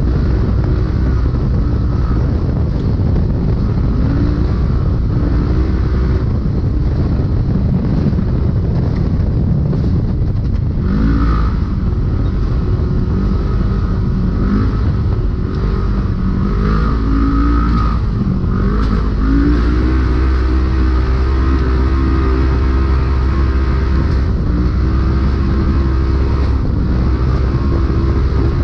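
Polaris RZR race UTV engine running hard under a heavy low rumble, its revs rising and falling again and again with the throttle.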